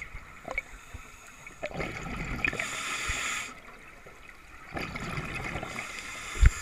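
Scuba regulator exhalations heard underwater: bubbling bursts of about two seconds each, twice, with quieter gaps between. A sharp low thump near the end.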